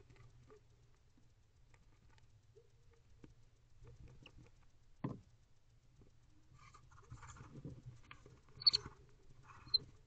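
Barn owls shuffling and preening in a wooden nest box: soft scratching and feather rustling over a faint low hum, a single knock about five seconds in, then a busier stretch of rustling with two sharp clicks near the end.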